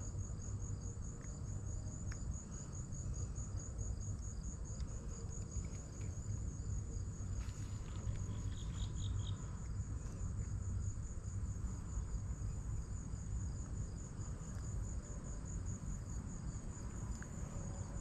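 Insects chirping in a steady, evenly pulsing high trill, with a low rumble underneath and a brief cluster of higher chirps about nine seconds in.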